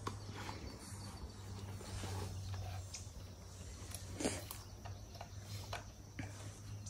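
Quiet outdoor ambience with a low steady hum and a few faint clicks and taps from ammunition boxes being handled.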